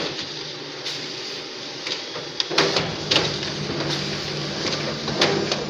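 Office multifunction photocopier starting a two-sided copy job. A steady running hum sets in about halfway through, with a few sharp mechanical clicks.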